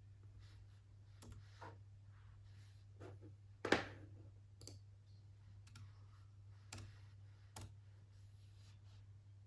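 Irregular, scattered clicks and taps of desk work with a mouse and an iPad stylus, the loudest a sharp tap just under four seconds in, over a low steady hum.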